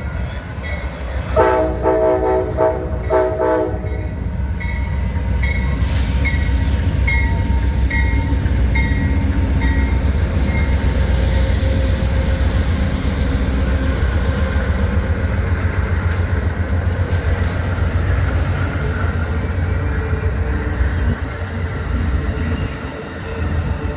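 A train horn sounds one chord blast of about three seconds, starting about a second in, over the steady low rumble of a passing train. After the horn, a bell rings repeatedly for several seconds.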